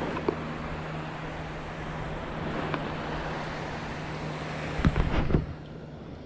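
Steady outdoor noise with wind on the microphone and a steady low hum underneath; a short cluster of knocks comes about five seconds in.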